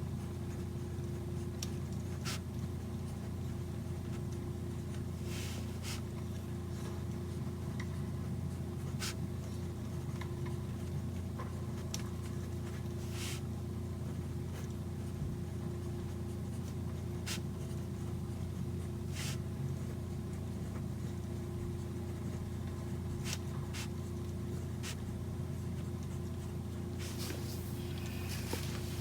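Pen writing on paper at a desk, with scattered sharp taps and clicks every second or few, over a steady low hum.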